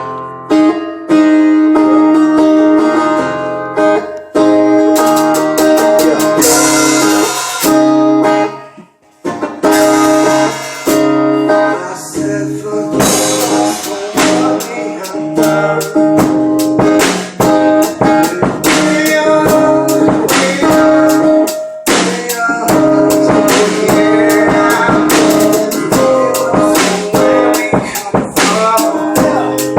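Instrumental music with guitar and drums, dropping out briefly about nine seconds in before coming back in.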